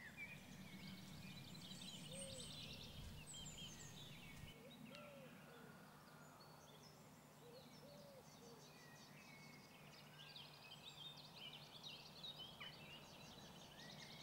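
Faint birdsong: several small birds chirping and trilling, with a few short lower calls, over a low steady hum.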